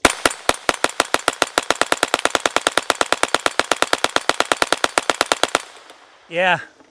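Hand-cranked Tippmann .22 LR Gatling gun firing one long burst: a few spaced shots that speed up to about ten shots a second, stopping after about five and a half seconds.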